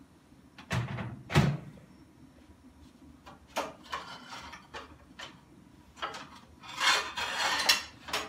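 Off-camera kitchen handling noises: two heavy knocks about a second in, then scattered light clicks and clatters, a noisy stretch of about a second near the end and a final knock, like cupboard or drawer doors and kitchenware being moved.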